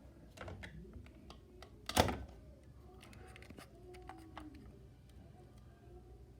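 Scattered light clicks and handling knocks, with one sharp, louder knock about two seconds in.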